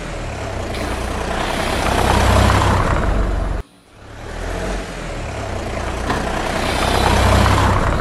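Plastic toy cement mixer truck rolled back and forth across a tabletop: a rumbling rolling sound in two long stretches, breaking off sharply about three and a half seconds in.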